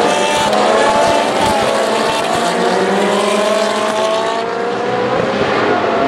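A pack of Ferrari 458 Challenge race cars, each with a 4.5-litre V8, accelerating out of a chicane. Many engine notes overlap, rising in pitch over the last few seconds as the cars pull away.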